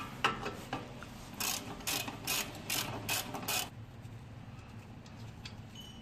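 Hand socket ratchet clicking on a front suspension bolt: a few clicks, then about six quick ratcheting strokes in a row from about one and a half seconds in, stopping at about three and a half seconds.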